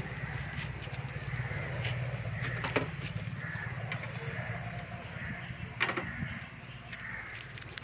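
Crows cawing over and over, with two sharp clicks, about three and six seconds in, over a steady low hum.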